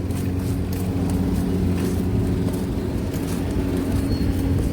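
An engine idling nearby, a steady low hum with a constant pitch, over street background noise.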